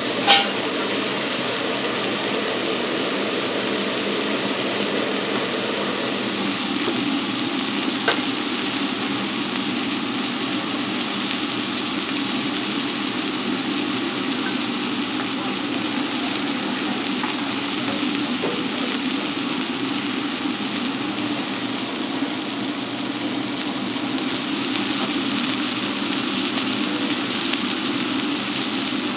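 Oyster blade steak sizzling steadily as it fries, with a sharp clack near the start and a lighter click later on.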